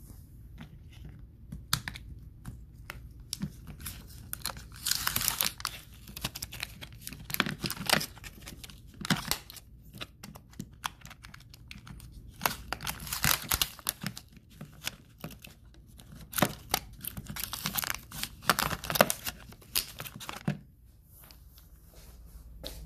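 Plastic blister pack of batteries being torn open by hand: irregular bursts of tearing and crinkling of the plastic and its backing, with sharp clicks as batteries are pushed out.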